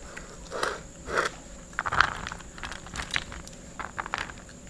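A steel ladle scraping and scooping cooked tamarind rice in a pressure cooker, several short scrapes with a sharp knock about two seconds in, then clumps of rice dropping onto a banana leaf near the end.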